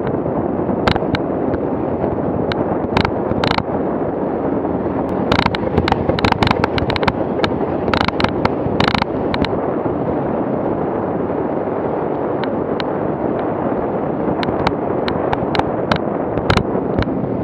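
Off-road vehicle driving over a rutted dirt track, heard from a camera on the bonnet: a loud, steady rumble of engine, tyres and wind. Irregular sharp knocks and clacks come through it as the vehicle jolts over ruts, thickest about a third to halfway through and again near the end.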